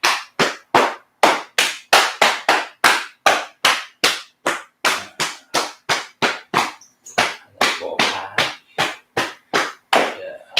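Open hands slapping the body, the hips and legs, in a steady rhythm of about three slaps a second, as in a qigong slapping exercise.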